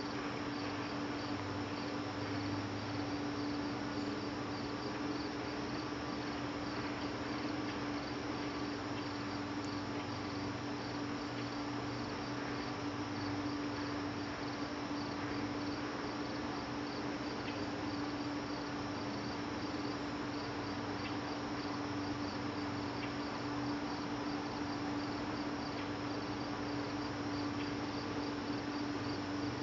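Crickets chirping in an even, steady rhythm of high-pitched pulses, over a constant low hum.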